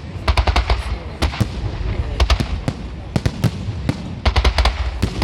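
Fireworks salute going off: repeated clusters of sharp crackling bangs over low booms, coming in quick bursts.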